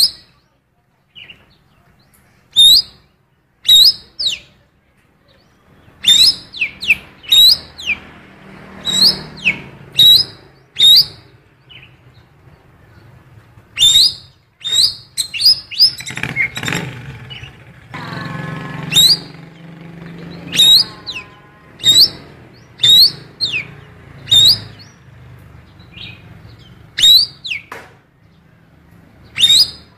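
Cucak keling biru singing a song filled with imitated female oriental magpie-robin (kacer) calls. It gives sharp, high chirps with a rising hook, roughly one a second at uneven intervals, with a busier, harsher phrase around the middle.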